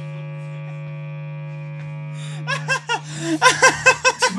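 Electric guitar amplifier cranked to extreme volume, its loud steady hum and buzz droning on while the guitar is not played. Laughter breaks out from about two and a half seconds in.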